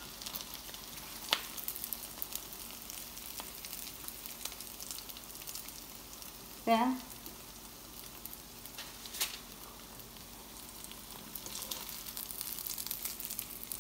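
Potato patties frying in shallow oil in a pan: a steady sizzle with fine crackling. A couple of sharp clicks stand out, about a second in and again around nine seconds.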